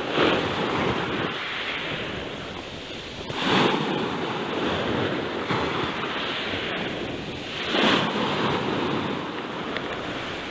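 Surf breaking and washing up the shore, surging about every four seconds.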